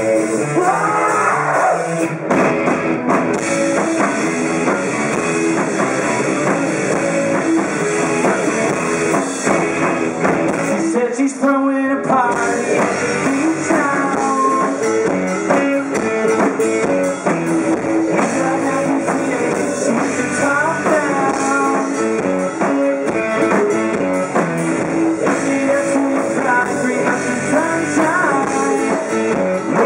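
A rock band playing live: electric guitar, bass guitar and drum kit.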